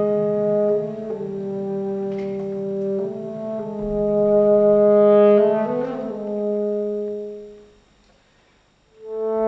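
Orchestra playing slow, held chords with the brass to the fore, the chords changing every second or two and swelling about five seconds in. The sound dies away to a brief pause about eight seconds in, then the orchestra comes back in with new chords near the end.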